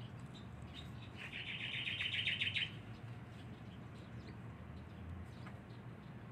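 A bird's rapid chirping trill, about ten notes a second for a second and a half, starting about a second in, over a faint low steady hum.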